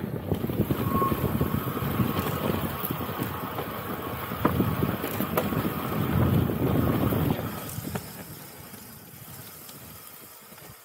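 Mountain bike rolling fast down a rough dirt trail: tyres rumbling over rocks and roots, with rattles and knocks from the bike and wind on the microphone. The noise dies down after about seven and a half seconds.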